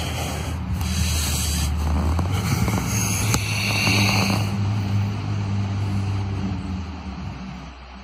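A loud, steady low drone with a rough rustling noise over it, fading away near the end.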